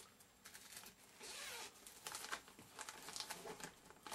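Faint rustling and light clicks of packaging being handled inside a fabric carrying case, with a brief scraping rasp about a second in.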